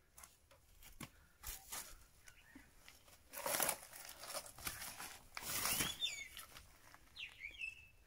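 A few short bursts of rustling noise, the loudest about three and a half and five and a half seconds in, with faint bird chirps about six seconds in and again near the end.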